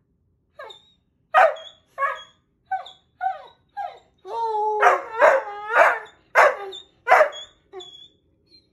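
Wolfhound puppy howling in a run of about a dozen short yipping calls, many dropping in pitch, with one longer held note about four seconds in.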